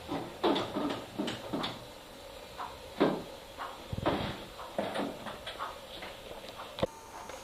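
Scattered light knocks and clicks at irregular intervals, with one sharp click near the end.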